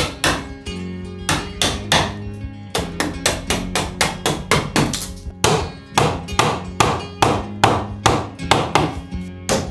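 Steel hammer striking a wood chisel into timber, a quick irregular series of sharp knocks about two to three a second as the notch is cut. Soft background music with sustained guitar-like tones runs underneath.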